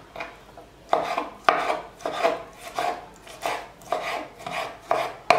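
Kitchen knife dicing a tomato on a wooden cutting board: a steady run of knife strokes hitting the board, about two a second, cutting off suddenly at the end.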